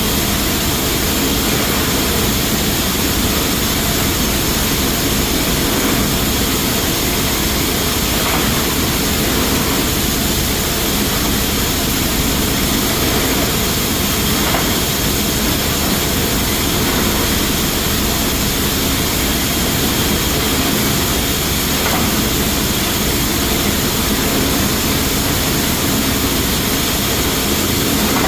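Rice mill's automatic bagging and palletizing line machinery running with a loud, steady hum and hiss, with faint knocks now and then.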